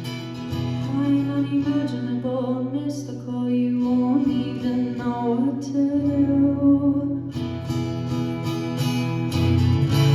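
Closing bars of a live song with guitar, the voice holding and bending notes without clear words.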